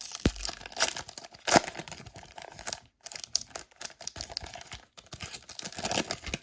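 Trading card pack wrapper being torn open and crinkled in the hands, an irregular run of tearing and rustling crackles with the sharpest rip about one and a half seconds in.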